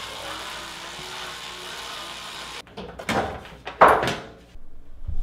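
Small electric screwdriver whirring steadily as it backs a screw out of a TV's plastic back cover, stopping after about two and a half seconds. Then the plastic back panel clatters and knocks as it is lifted off the TV.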